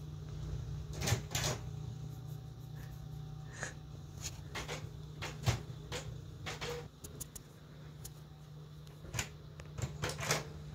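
Desktop printer working: a series of irregular mechanical clunks and clicks from its paper feed and print carriage, over a steady low hum.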